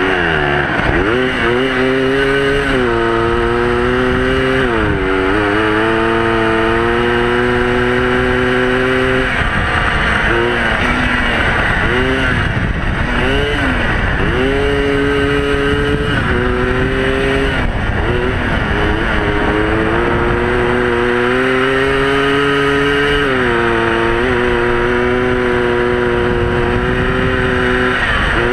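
Yamaha Blaster two-stroke single engine in a shifter kart running at high revs. The pitch holds level for several seconds at a time, then dips and climbs again several times as the throttle is lifted and reapplied. The owner thinks the engine is running lean, not rejetted for the cold.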